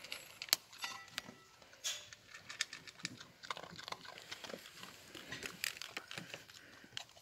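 Dog crunching dry kibble from a metal bowl: a run of irregular, crisp crunches and clicks.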